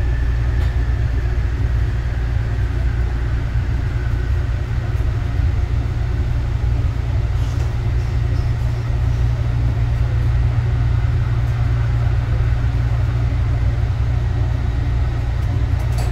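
Cabin noise of a Bombardier ART 200 linear-induction-motor light rail car slowing into a station: a steady low rumble with a motor whine that falls slowly in pitch over the first few seconds.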